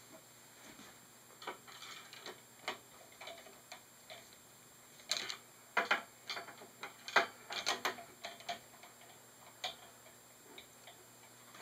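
Irregular sharp clicks of one-handed quick-release bar clamps being squeezed and adjusted on an aluminium extrusion frame, coming thickest in a run about halfway through.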